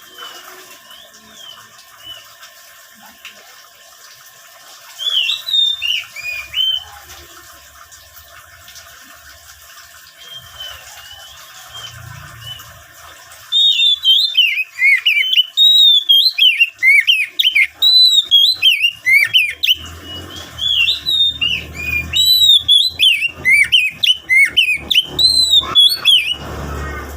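Oriental magpie-robin (kacer) in full, vigorous song. A short burst of rapid whistled phrases comes about five seconds in. From about halfway a loud, unbroken run of varied phrases sweeps up and down, with a steady hiss beneath the quieter first half.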